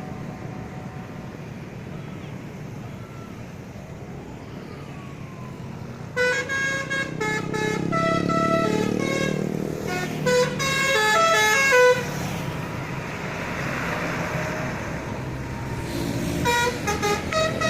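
Bus 'telolet' horn, a set of musical horns, playing a quick tune of stepped notes starting about six seconds in and sounding again near the end, over the low rumble of engines and traffic.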